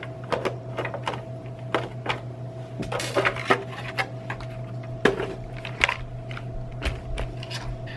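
Irregular light clicks and knocks of small hard objects being handled, over a steady electrical hum.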